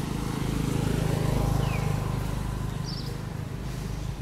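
A passing motor vehicle: its engine rumble swells to its loudest about a second and a half in, then fades. A brief high chirp is heard near the middle.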